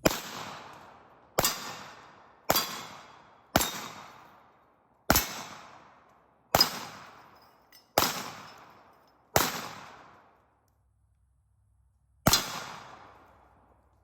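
Girsan 1911 pistol fired nine times in slow, steady succession, about one shot every second and a half, with a longer pause before the last shot. Each shot is a sharp report that rings out and fades over about a second.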